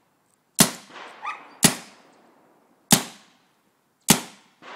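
GTI Piranha CO2 paintball gun firing four single shots, each a sharp crack with a short tail, about a second apart. The gun is frozen from the CO2 and blows it out as snow.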